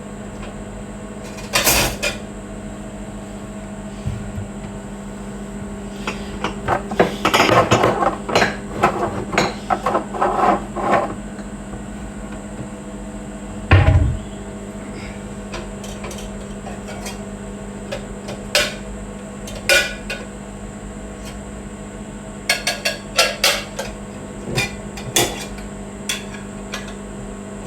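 Dishes and cutlery clattering and clinking as they are washed, with a dense run of clatter a few seconds in, a heavy knock midway and scattered clinks later. Under it runs the steady hum of a microwave oven cooking.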